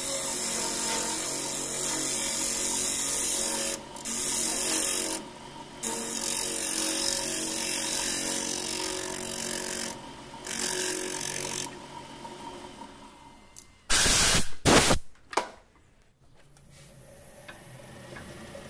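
Wood lathe hollowing the inside of a spinning mastic-wood goblet: a turning tool cutting with a steady hiss in stretches of a few seconds, with short pauses, over the lathe motor's steady hum. About fourteen seconds in there are a few loud short bursts, and then the cutting goes quieter near the end.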